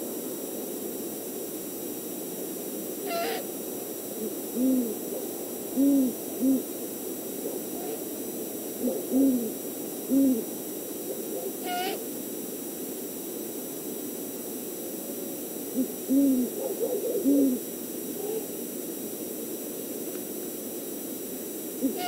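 Great horned owls hooting: short runs of deep hoots in two clusters, with a quiet gap of a few seconds between them.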